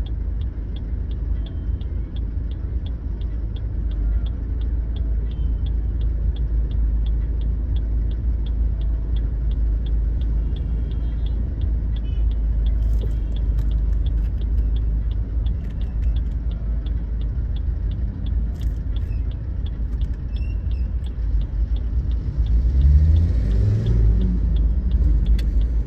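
Car's engine and road rumble heard from inside the cabin while driving in traffic, with a faint, steady ticking about three times a second. Near the end the engine's pitch rises briefly as the car speeds up.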